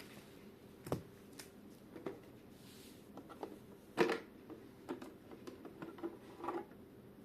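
Irregular clicks, knocks and rustles of a boxed dehumidifier and its packaging being handled, the loudest knock about four seconds in.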